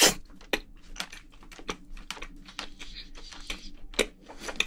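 Close-miked chewing of a mouthful of spicy braised seafood: a quick, irregular run of small mouth clicks, with one sharper click about four seconds in.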